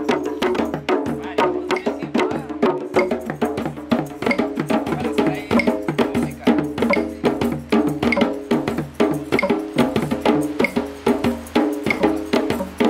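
Several hand drums, djembes among them, played together in a fast, even rhythm of sharp slaps and deeper tones.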